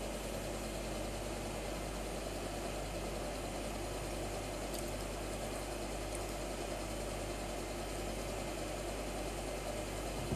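Steady low hum with a faint hiss: an unchanging mechanical or electrical background drone with no distinct events.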